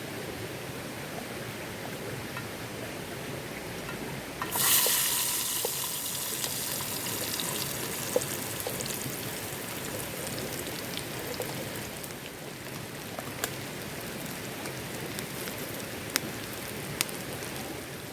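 Bamboo splints in a campfire catching: over a steady rain-like hiss, a sudden loud hiss starts about four and a half seconds in and slowly fades, followed by scattered sharp crackles.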